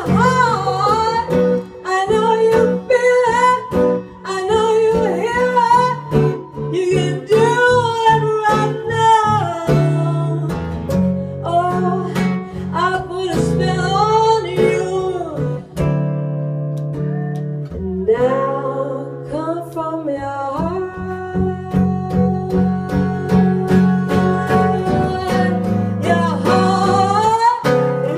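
A woman singing a song live with two acoustic guitars strumming and picking chords behind her. The voice drops out for a couple of seconds a little past the middle while the guitars carry on, then comes back.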